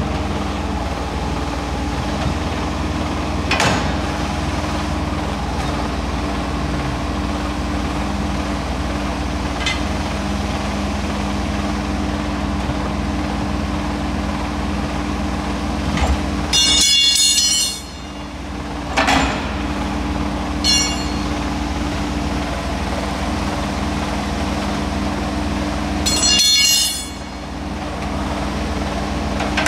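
Truck-tyre changer machine (Guernet Tyrebox) running with a steady hum while a truck tyre is worked on its rim, with a few sharp metal clanks and two short, loud harsh noises about 17 and 26 seconds in.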